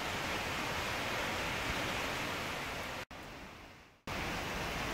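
Steady rain and gusting wind in a summer squall, with wind buffeting the microphone. The sound cuts out abruptly about three seconds in and comes back a second later.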